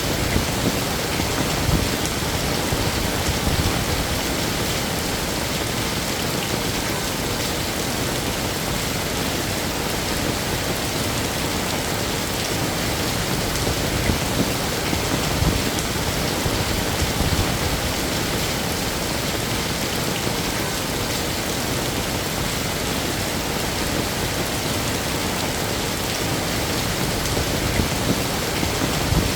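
Heavy rain falling steadily, with a few brief louder spatters.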